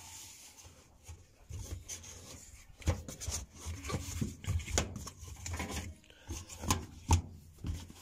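Rubber door boot of a front-load washer being pulled and worked free around the drum opening by hand: irregular rubbing and scraping with small knocks.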